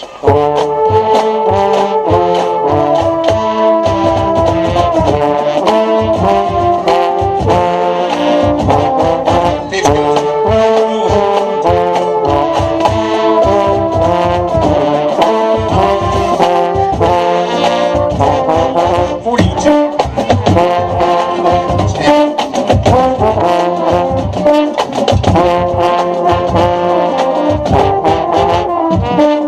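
Marching band brass section and drums playing together, with the mellophones closest. The horns come in all at once, play chords in close harmony, and run over a steady, regular drum beat.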